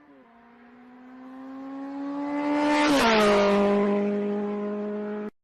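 A motor vehicle engine passing close by. Its steady hum grows louder for about three seconds, then drops in pitch as it goes past and fades slightly before cutting off.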